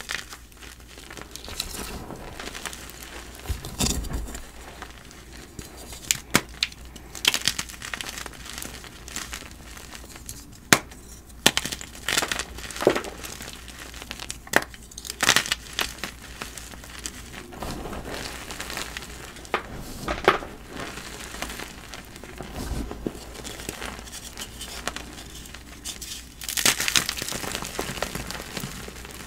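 Blocks of dyed gym chalk being crushed, giving irregular crunches and crackles with soft crumbling between them. There is a longer, denser run of crunching near the end.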